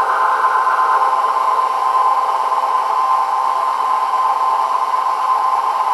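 KitchenAid Professional 600 stand mixer running steadily with its wire whisk attachment, beating egg yolks into butter and sugar in the steel bowl: a constant motor whir with a steady hum.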